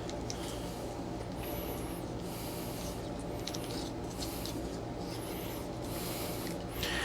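Intermittent rustling and scraping from plants and plastic pots being handled, some strokes with a faint squeak, over a steady low hum.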